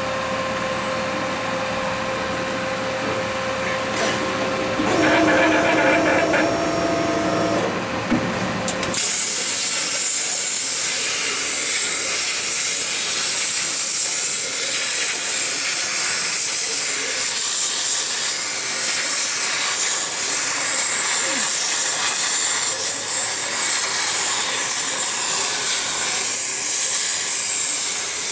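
A steady hum with a few held tones. About nine seconds in, a CNC plasma cutter's arc strikes, and the plasma jet hisses loudly and steadily as it cuts through sheet metal.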